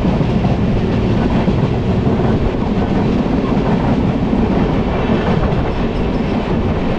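Passenger train wheels running on the rails, a steady loud rumble heard close by, as from an open carriage door with a second train alongside on the next track.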